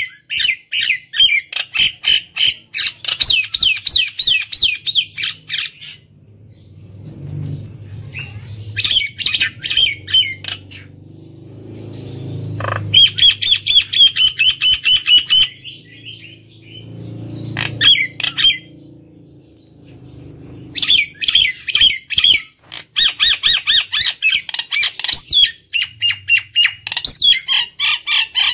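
Common myna singing in bursts of fast, harsh, chattering notes, each burst a few seconds long and separated by short pauses.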